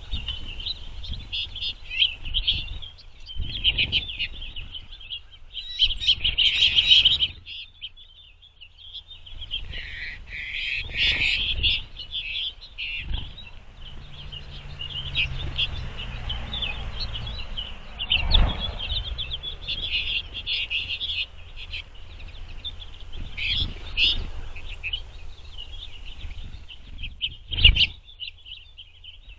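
Mixed flock of finches, pine siskins among goldfinches and house finches, twittering and chirping almost without pause at a bird feeder. Several dull thumps come from birds landing on or knocking the feeder, the loudest about two-thirds of the way through and near the end.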